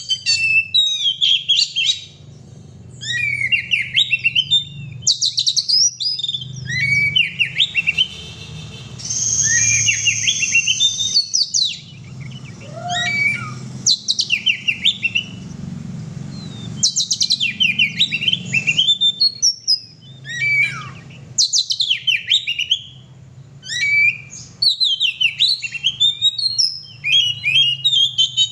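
Oriental magpie-robin (kacer) singing a loud, varied song in rapid bursts of sharp chirps and trills with short pauses between, including one long high whistled note about a third of the way in. A low steady hum runs underneath.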